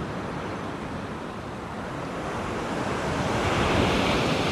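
Ocean surf washing onto the beach, with wind buffeting the microphone; a breaking wave swells louder near the end.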